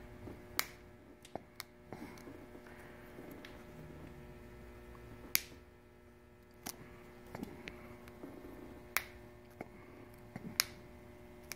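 Irregular sharp clicks and snaps, about five loud ones with smaller ticks between, as small plastic bulb-socket parts are cut and handled, over a faint steady hum.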